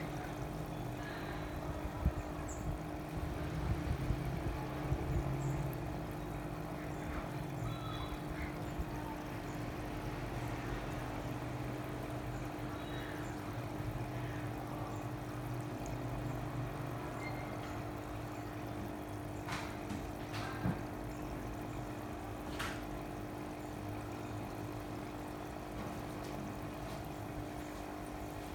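Water trickling and splashing over a steady pump hum, like the circulation and filtration of fish tanks.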